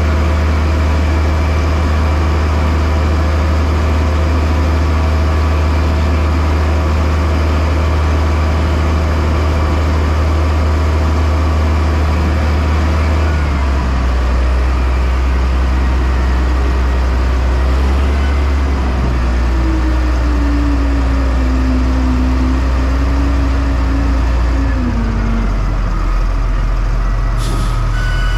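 A heavy engine running steadily close by, a deep drone that drops to a lower pitch about halfway through, with a short hiss near the end.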